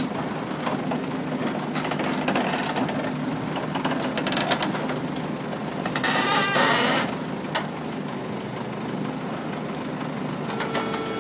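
Heavy diesel engine idling steadily, with scattered metallic clicks and knocks and a brief louder hiss about six seconds in.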